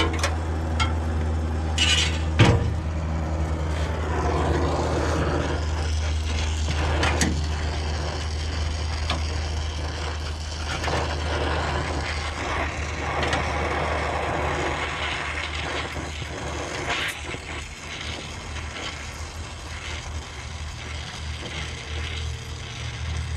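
Oxy-acetylene welding torch flame hissing steadily while gas-welding sheet steel, with a few sharp knocks, the loudest about two and a half seconds in. A steady low hum runs underneath.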